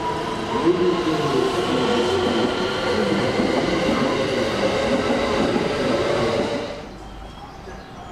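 JR West rapid electric train pulling into the platform, its wheels rolling and a steady whine of several tones above them. The whine and most of the noise cut out about seven seconds in, leaving quieter rolling as the train creeps toward its stop.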